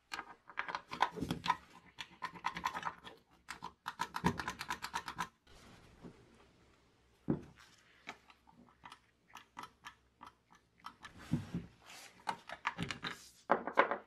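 Iron skeleton key grating, rattling and clicking in the keyhole of a rusty vintage door lock as it is worked back and forth; the rusted mechanism is stuck and won't turn. Dense runs of clicks come at the start and near the end, with a few dull knocks between.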